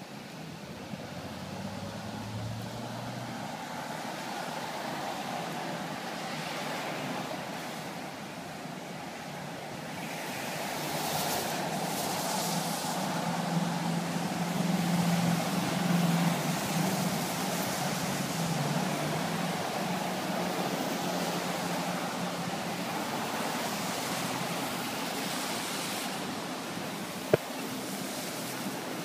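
Steady rain hissing on a wet street and pavement. A low hum rises and fades around the middle, and there is one sharp click shortly before the end.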